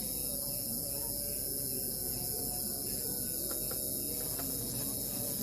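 A chorus of crickets chirping, a steady high-pitched trill that holds unchanged throughout.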